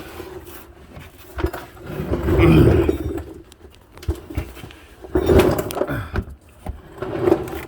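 Tools and metal engine parts being handled: irregular clinks, rattles and rubbing, in bursts that are loudest a couple of seconds in and again about five seconds in.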